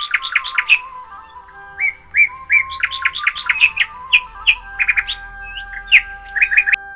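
Birds chirping in quick runs of short rising chirps, over soft background music with slow held notes.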